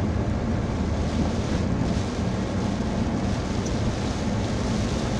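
Steady low rumble inside a car driving in pouring rain, with the hiss of rain on the car over it.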